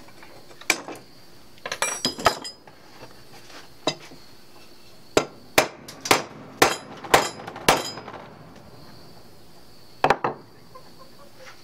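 A small hammer tapping a 1/8-inch brass pin into a knife handle: sharp metallic taps, with a run of six about half a second apart in the middle. A quick cluster of ringing metal clinks comes about two seconds in.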